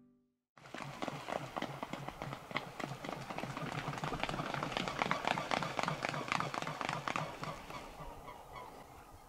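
Swans taking off from water: a fast run of wingbeats and feet slapping the surface, starting about half a second in. It fades as the birds climb away.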